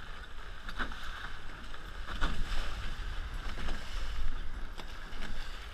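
Water rushing and splashing along the hulls of a Hobie 16 catamaran sailing fast through chop, with wind buffeting the microphone. Several short slaps of spray stand out from the steady rush.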